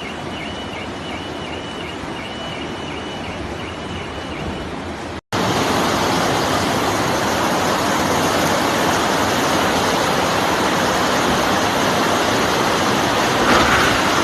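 Floodwater rushing, a steady noise without pitch, with a faint high tone repeating about three times a second. About five seconds in, the recording cuts to a louder stretch of rushing water.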